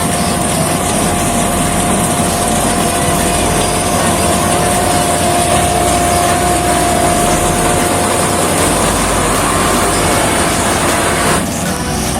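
Combine harvester running steadily in a rice field: loud engine and machinery noise with a steady whine through it, changing abruptly near the end.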